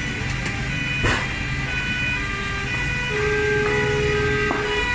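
Emergency-vehicle sirens sounding, their tones switching between steady pitches, over the low rumble of vehicle engines, with a single knock about a second in.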